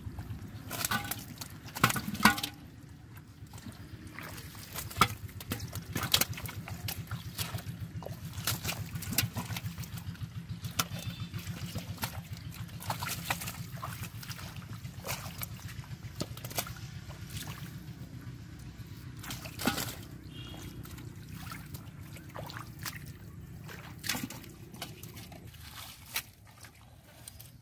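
Hands sloshing and squelching through shallow muddy water while grabbing fish, with frequent sharp splashes and slaps; the loudest come about two seconds in and again near twenty seconds.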